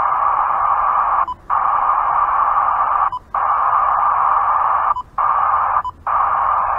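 Radio scanner's speaker hissing loudly with static on a channel where nothing is being transmitted. The hiss cuts out briefly four times.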